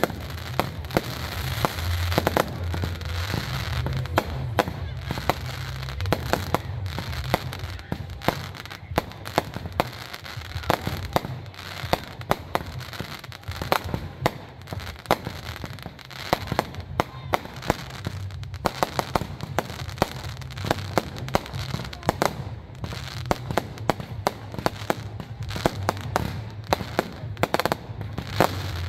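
Fireworks display: a continuous run of sharp bangs and crackling pops from bursting aerial fireworks, often several a second, with no real break.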